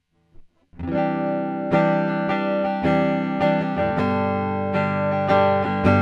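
Ibanez GRGR121M electric guitar played through its neck pickup with a clean tone, starting about a second in. It plays ringing, sustained chords, moving to a new chord roughly every second.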